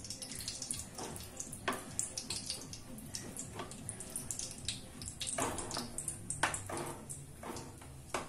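Whole spices (cardamom, cinnamon, cloves) sizzling in hot ghee in a kadai, a steady frying hiss. A wooden spoon stirs them, scraping and knocking against the pan about ten times.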